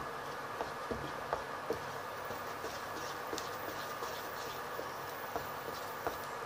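Wooden spatula stirring and scraping thick, sticky halwa in a nonstick pan, giving soft irregular clicks and scrapes. Under it runs a steady buzzing hum from the induction cooktop.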